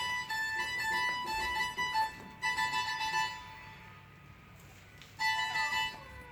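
High, piercing keyboard-style notes played in quick, choppy bursts. They fade out around the middle and come back briefly near the end.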